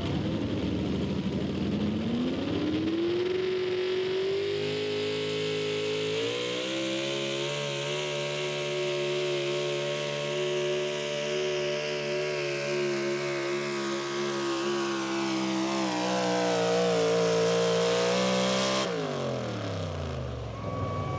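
Pro Stock 4x4 pulling truck's engine revving up at the launch, then running flat out at high, steady revs while dragging the pulling sled, climbing a little higher and loudest near the end. About nineteen seconds in, the throttle is cut and the revs fall away as the pull ends.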